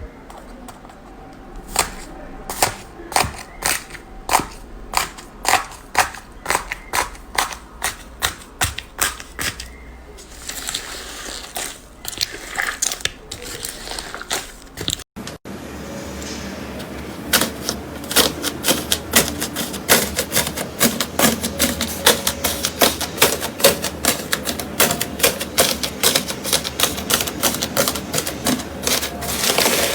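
Slime being squeezed and poked, trapped air popping in sharp clicks: spaced at first, then after a cut about halfway through a fast run of crackling pops.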